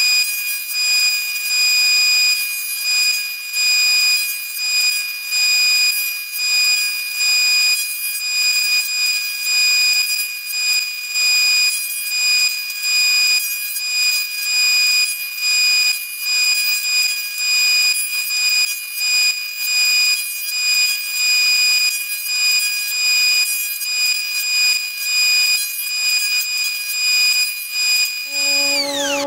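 Jointer cutterhead running with a steady high whine as strips of ash and thermally treated ash are fed across it one after another, the cutting noise swelling and falling about once a second with each pass.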